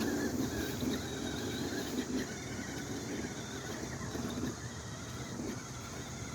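Electric motor and gearbox of a toy remote-control car whirring as it drives, louder for the first few seconds and easing off about four and a half seconds in.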